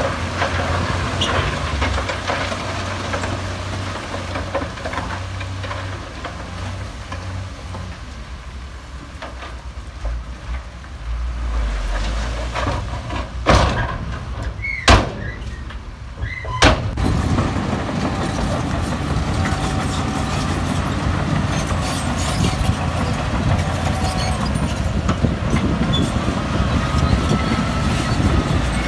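Diesel engines of bulldozers and dump trucks running under load, a steady low rumble, with three sharp knocks about halfway through.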